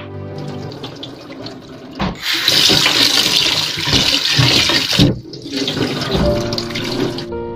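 Kitchen tap running into a bowl of meat in a stainless-steel sink, with splashing as hands rinse it and water poured off into the sink. The running water comes in loud about two seconds in and cuts off about five seconds in, over soft background music.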